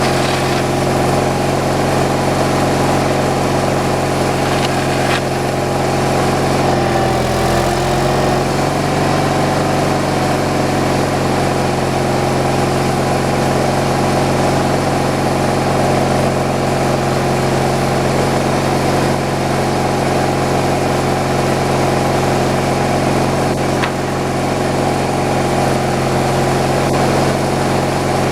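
Engine of a homemade slab-wood kindling cutting machine running steadily, with a brief change in pitch about seven seconds in and a few faint clicks.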